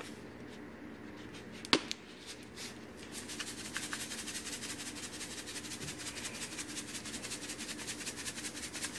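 A seasoning shaker shaken over diced raw potatoes, a fast, even rattle of about ten shakes a second from about three seconds in. It is preceded by a single sharp click just under two seconds in.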